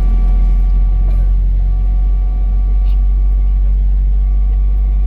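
Steady low rumble inside the cabin of a Boeing 777-300ER standing on the ground, with a few faint steady tones above it.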